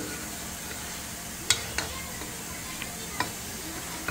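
Chicken strips, onion and bell peppers sizzling in oil in a nonstick pot as they are stirred with a plastic spoon, which knocks against the pot a few times with sharp taps.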